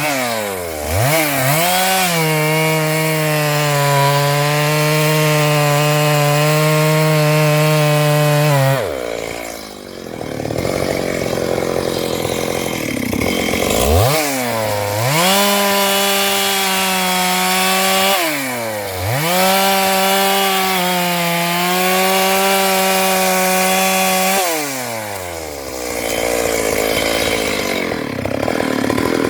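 Stihl MS 382 two-stroke chainsaw cutting wood, held at full throttle in long, steady bursts. Between bursts the engine drops away, then revs back up for the next pass, three times over.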